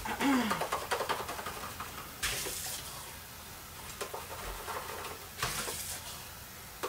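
Water running and splashing in three short spells as the brush-rinse water is changed, so that blue paint in the old water does not muddy the orange.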